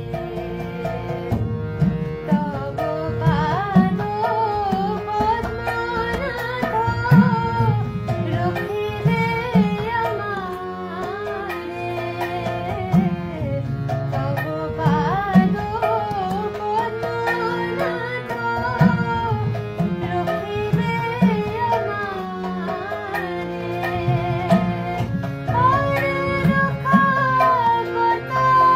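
A woman singing a Bengali devotional bhajan to her own harmonium accompaniment, with a hand drum keeping a steady rhythm.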